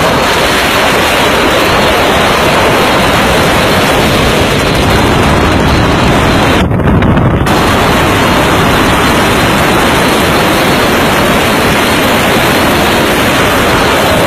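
Loud, steady rushing roar of an aircraft in flight, heard on board, with wind buffeting the microphone; the sound briefly dulls about seven seconds in.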